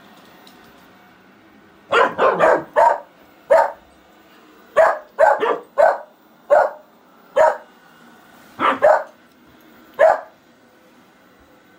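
Dog barking at a running robot vacuum cleaner: about a dozen sharp barks in quick bunches, starting about two seconds in and stopping near the end, over the faint steady hum of the robot vacuum.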